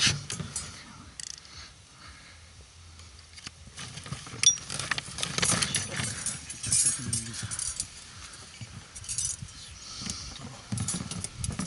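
Metal fishing tackle jangling and clinking in short, irregular bursts as a Salmo wobbler's hooks are handled after a pike catch.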